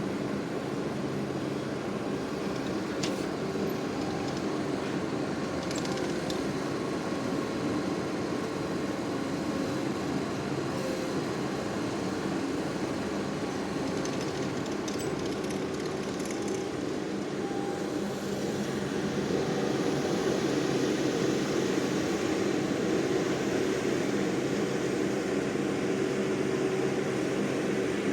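ASV RT-40 compact track loader's engine running steadily under work, with a few faint knocks and clanks; it gets louder about two-thirds of the way through.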